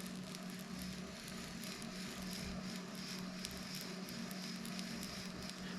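Gears of a Shimano SpeedMaster 16II saltwater reel being wound in reverse, giving a steady faint crackle with light ticks. The owner puts the crackle down to grease bubbles popping as the gear teeth mesh with the main gear.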